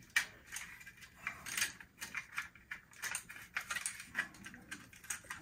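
Irregular small plastic clicks and rattles, several a second, as the Lionel No. 6473 horse transport car is tilted and turned by hand, its pivoting horse figures knocking in and out against their stops.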